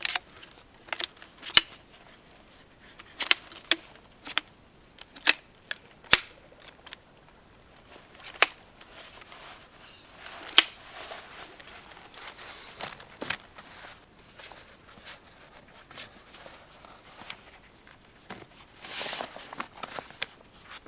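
Folding camp chair being set up: irregular sharp clicks and snaps of its frame, with short bursts of fabric rustling about halfway through and near the end.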